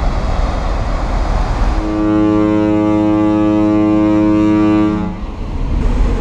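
A ship's horn sounds one long, steady blast of about three seconds, starting a couple of seconds in, over a constant rush of wind and water noise on the ferry deck.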